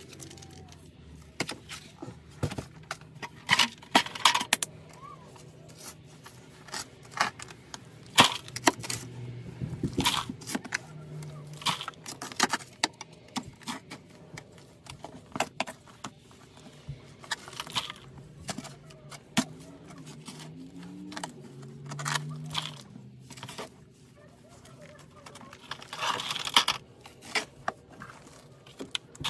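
Short-handled digging tool chopping and scraping into packed crawl-space soil in irregular strokes: sharp knocks and scrapes, sometimes several in a second, with quieter gaps between.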